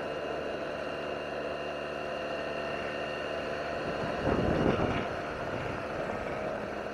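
Yamaha TMAX 560 maxi-scooter's parallel-twin engine running steadily under load on an uphill climb, with wind noise over it; a brief louder rush of noise about four seconds in.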